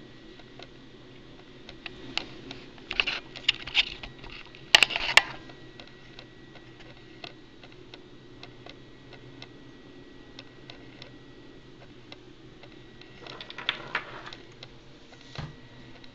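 Steady, faint ticking about twice a second over a low steady hum, broken by two spells of louder clicking clatter, the loudest about five seconds in, and a single dull thump shortly before the end.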